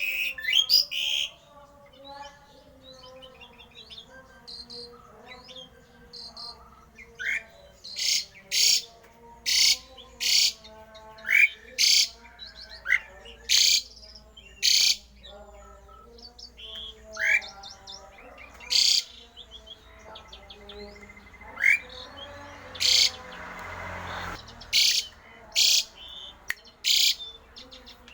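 Javan pied starling (jalak uren) singing a varied song of sharp chirps, quick rising whistles and lower chattering notes, about one call a second, busier from about a quarter of the way in.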